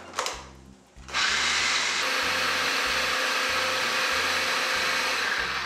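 Food processor running, pureeing soaked French bread and water into a paste. The motor starts about a second in, runs at a steady level, and begins to wind down near the end.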